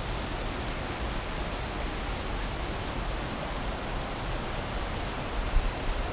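Steady, even rushing noise of glacial meltwater running beneath the ice and rocks, with a brief low bump about five and a half seconds in.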